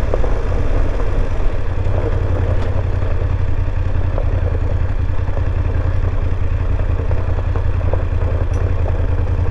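BMW F850 GS motorcycle's parallel-twin engine running steadily, its low firing pulse even with no revving.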